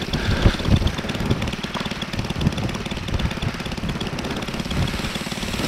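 Paramotor engine idling steadily, close up, just before a forward launch.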